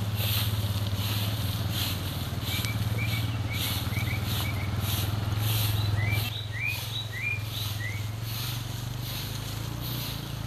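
A broom sweeping a paved road in regular swishing strokes, about one and a half a second. Birds chirp in short rising notes from a couple of seconds in, over a steady low hum.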